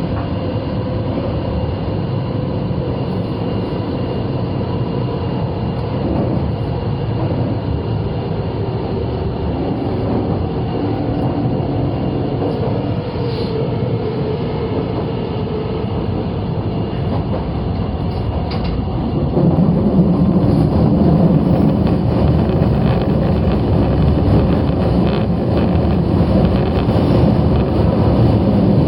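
Osaka Metro 22 series subway train running, heard from inside the front car: a steady rumble of wheels and motors. It grows louder and heavier about two-thirds of the way through.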